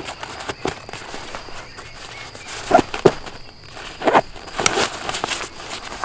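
Nylon stuff sack on a backpack being handled and opened: irregular fabric rustling and crinkling with sharp little crackles, loudest in two clusters around three and four seconds in.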